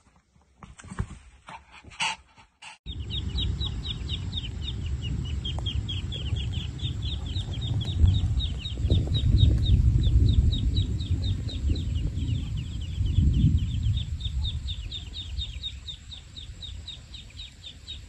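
A chick peeping over and over, short high peeps that slide downward, several a second, starting about three seconds in. Under the peeps runs a loud low rumbling noise.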